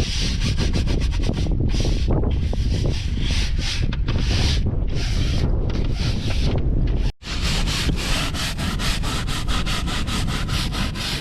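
Deck brush scrubbing a boat's wet deck in repeated back-and-forth strokes: long, slower strokes at first, then after a brief break a quicker run of short strokes.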